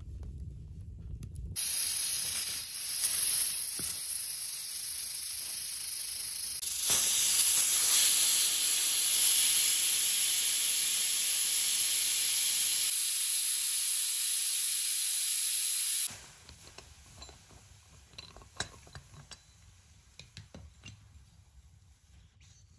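Pressure cooker venting steam through its valve: a loud, steady hiss that breaks off suddenly about two thirds of the way in. Faint small clicks follow.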